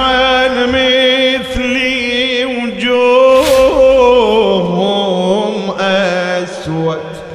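A man singing a Shia mourning elegy (latmiya) solo into a microphone, holding long, ornamented, wavering notes. The melody steps down after about five seconds. A short sharp noisy burst comes about three and a half seconds in.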